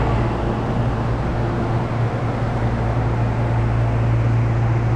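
Steady low hum with an even rushing noise above it from a subway train standing at an underground platform with its doors open, its onboard equipment running.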